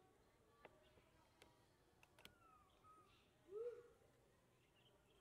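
Quiet outdoor ambience with a few faint clicks, a faint falling whistle a little after two seconds, and one short rising-then-falling call about three and a half seconds in.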